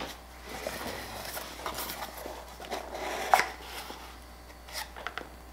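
A small white cardboard box being opened by hand: cardboard flaps rustling and scraping against each other and a paper card inside, with one sharp click a little over three seconds in.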